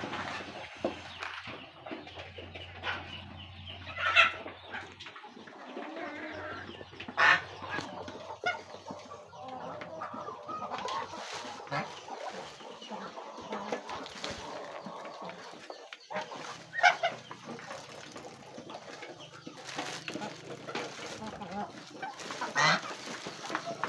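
A mixed flock of chickens, ducks and geese feeding together, clucking and chattering without pause. A handful of sharp, loud calls stand out from the chatter.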